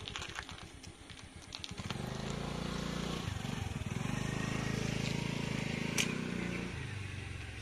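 A low, steady vehicle rumble, pulsing fast for its first two seconds, then running smoothly. A single sharp click sounds about six seconds in.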